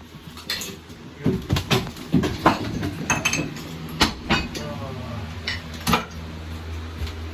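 Demolition work: irregular knocks and clattering of broken debris being struck and moved, with a steady low hum underneath from about halfway through.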